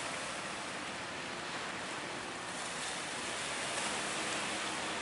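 Surf breaking and sea water rushing, a steady roar of noise. A faint low engine hum from the passing wooden fishing boat runs underneath.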